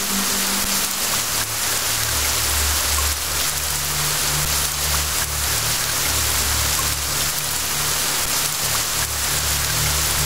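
Steady rain falling, an even hiss of drops, with low held musical notes underneath that shift every few seconds.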